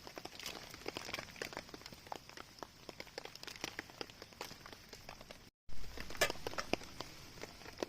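Raindrops tapping irregularly on a tarp overhead, many small sharp ticks over a faint hiss. The sound cuts out briefly about five and a half seconds in, and a sharper tick follows just after.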